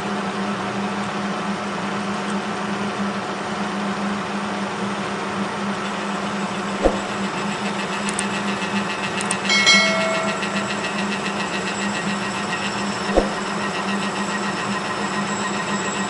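Kearney & Trecker horizontal milling machine running steadily at 480 RPM, its arbor-mounted cutter taking a full-depth groove cut along a Delrin shaft under power feed. Two sharp clicks come a little before halfway and near the end, and a brief higher whine sounds about two-thirds of the way through.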